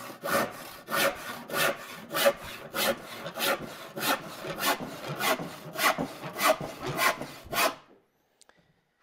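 Irwin 20-inch hand saw cutting through a thick softwood board with fast, forceful strokes, nearly two a second, each cutting push stroke giving a loud rasp. The sawing stops about a second before the end.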